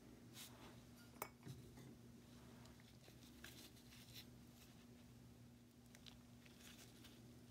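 Faint handling noises as gloved hands take apart a rusty Shelton hand plane's iron and chip breaker: a sharp metal click about a second in, then light scrapes and rustles of metal and glove, over a steady low hum.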